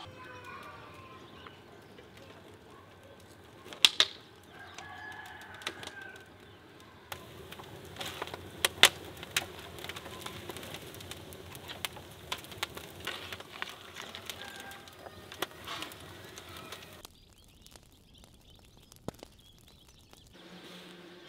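Dry brushwood snapping and crackling as it is pushed into the fire of a clay tandoor oven, with the sharpest cracks about 4 and 9 seconds in. Small birds chirp in the background.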